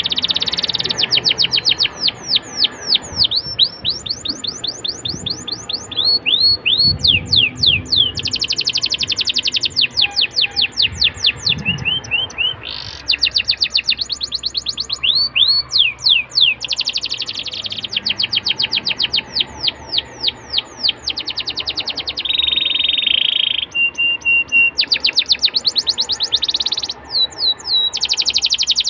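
Domestic canary singing continuously: long, fast rolling trills of repeated sweeping notes, switching from one trill type to another every second or two, with a couple of short steady whistled notes about three quarters of the way through.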